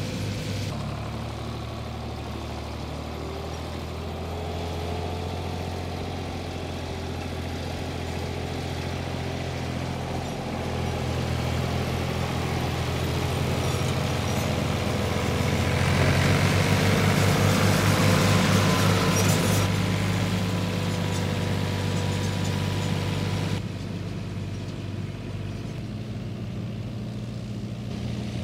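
Ford 4000 tractor's three-cylinder engine running steadily, growing louder and fuller for several seconds in the middle. The sound changes abruptly twice, about a second in and near the end.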